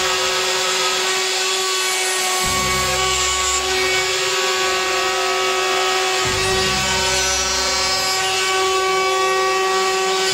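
Plunge router running steadily with a continuous whine, milling a concealed-hinge recess into a wooden door through a metal template.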